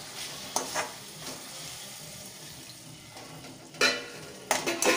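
A spatula stirring and scraping cauliflower and potato pieces in a metal kadai, with a steady sizzle from the pan underneath. A few sharper scrapes against the pan stand out, the loudest about four seconds in and a cluster near the end.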